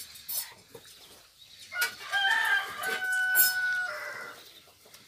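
A rooster crowing once, a stepped cock-a-doodle-doo that starts about two seconds in and ends in a long held note, with a few short sharp knocks and rustles around it.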